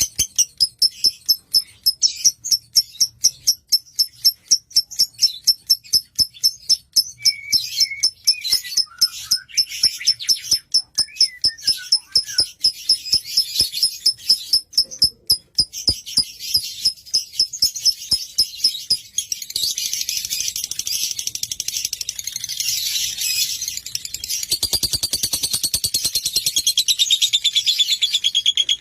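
Lovebird chirping: a long run of sharp, high chirps at about four a second, changing about twenty seconds in to a denser, continuous chattering song.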